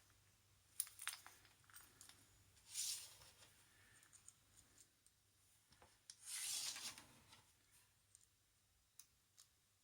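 Faint handling noises of a Euro-style lock cylinder being fitted into a wooden hand clamp: scattered small clicks and taps, with two soft, hissy rubbing sounds, about three seconds in and again around six to seven seconds in.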